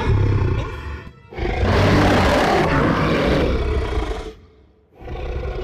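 Cartoon soundtrack music with a large creature's roar sound effect lasting about three seconds, starting a little over a second in and breaking off near the end.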